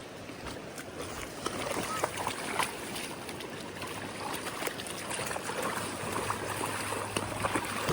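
River water running over rocks: a steady rushing hiss, with scattered short clicks and knocks over it.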